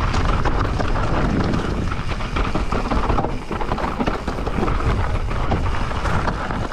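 Transition Spire 29er mountain bike descending a dry, loose trail: steady tyre noise over dirt and stones with frequent clicks and rattles from the bike, and heavy wind noise on the microphone.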